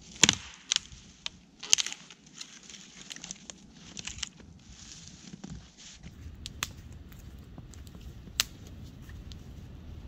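Dead wood branch, levered between two tree trunks, cracking and snapping as it breaks into firewood: a sharp crack about a quarter second in, a cluster of cracks near two seconds, and smaller cracks around four seconds. From about six seconds a steady low background noise takes over, with a couple of sharp pops.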